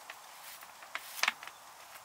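A few short, sharp knocks or clicks over a faint steady hiss, the loudest a quick double knock just past a second in.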